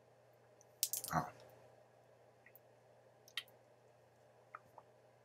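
A person drinking from a water bottle, heard faintly. A short noise comes about a second in, then a few small clicks from swallowing and lip smacks.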